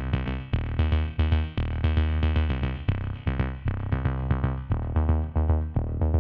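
Background music: electronic keyboard or synthesizer notes over a steady drum-machine beat.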